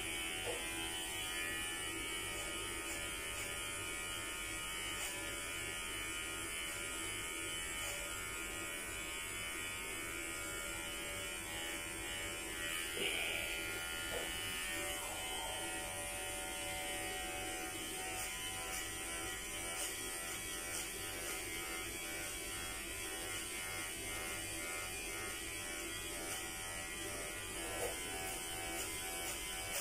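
Electric hair clippers running with a steady buzz as they cut through hair, briefly louder once a little before halfway.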